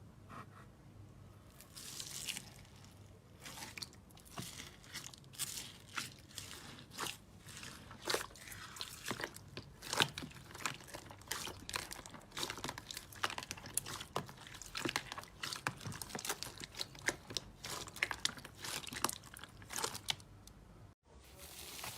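Slime being pressed and squeezed by hand, giving a dense, irregular run of small sharp crackles and pops. It cuts out briefly just before the end.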